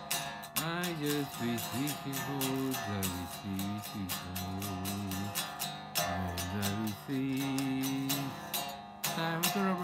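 Electric guitar strummed with a pick in a quick, even rhythm, its pitched notes changing and sliding between chords.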